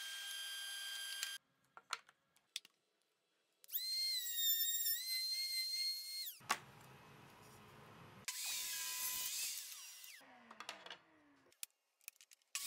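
Ryobi drill press motor running with a wood-boring bit in the block, then shutting off about a second in. After a short quiet gap with a few clicks, a power tool, likely the table saw, runs with a steady whine for a few seconds, then gives way to noisy cutting and a short falling-pitch wind-down.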